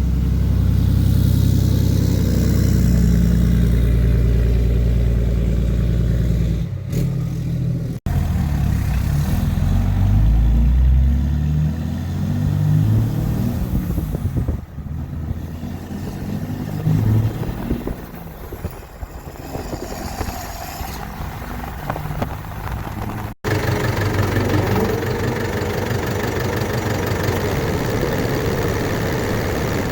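A heavy engine running, in three clips joined by abrupt cuts about 8 and 23 seconds in; its pitch and load shift between the clips, and it drops quieter in the middle stretch.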